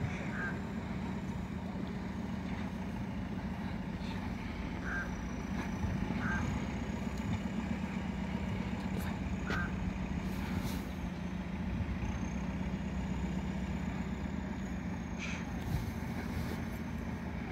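Diesel railbus engine running steadily at a standstill, a low even hum, with a few faint short high notes over it.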